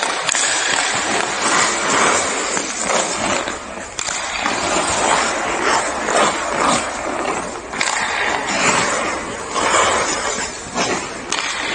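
Ice hockey skates scraping and carving on the ice in repeated swells as the player strides and turns, with a few sharp clicks of the stick on the puck.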